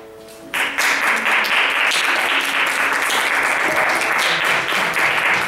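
Theatre audience applauding, breaking out suddenly about half a second in and carrying on as dense, steady clapping. A held music chord is heard before the clapping starts and carries on faintly beneath it.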